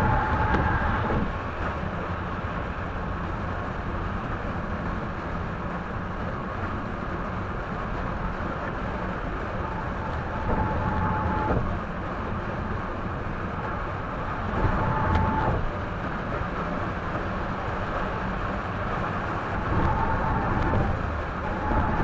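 Steady road noise of a car driving at highway speed, heard from a dashcam inside the cabin: a continuous tyre and engine rumble. Louder surges lasting about a second come about 11, 15 and 20 seconds in.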